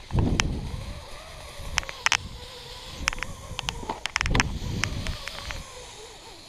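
Rappelling down a rock face, heard from a camera worn on the climber: low rumbling knocks as the body swings and the feet push off, one just after the start and another about four seconds in, with scattered sharp clicks and scrapes from the rope, the metal gear and the shoes on the rock.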